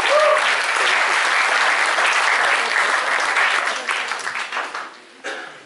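Audience applauding, the clapping thinning out about four seconds in and dying away about a second later.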